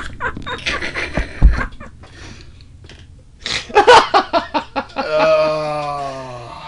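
Men laughing hard in uneven bursts, ending in one long drawn-out vocal sound that slowly falls in pitch.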